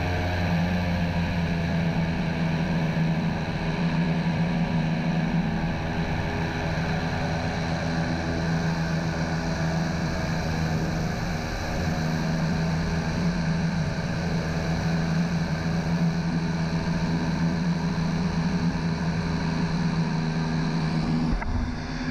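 Airboat engine and propeller running steadily, a loud even drone, dropping away right at the end.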